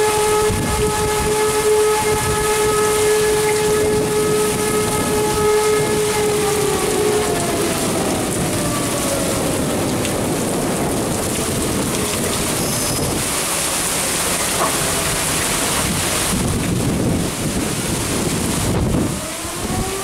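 Alarm siren holding a steady tone over heavy rain, then winding down in pitch and fading out about seven to ten seconds in, leaving the rain pouring. Just before the end the siren starts to rise again.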